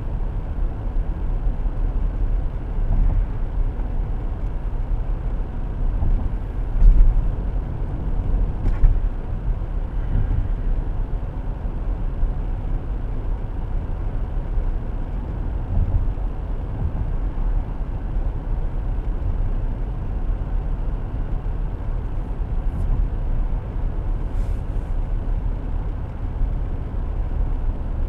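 Steady low rumble of a car driving, heard from inside the cabin: engine and road noise, with a couple of brief low thumps about seven and nine seconds in.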